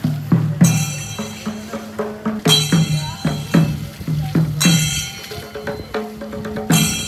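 Music with drums and percussion keeping a steady beat over held low notes.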